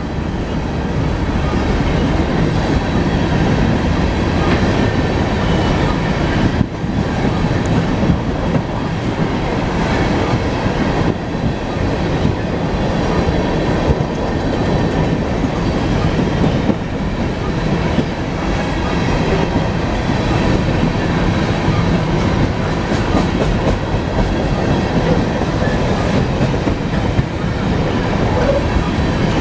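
A long BNSF coal train rolling past at close range: a loud, steady rumble of steel wheels on rail with rhythmic clickety-clack.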